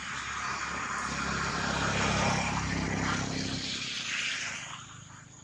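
A passing engine that grows louder to a peak about two seconds in, then fades away by about five seconds.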